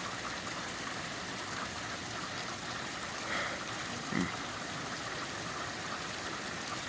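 Heavy rain falling steadily, an even hiss, with a short low blip about four seconds in.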